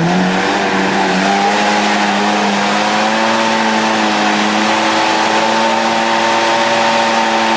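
Off-road vehicle's engine held at high, steady revs after climbing sharply, with a rushing noise over it.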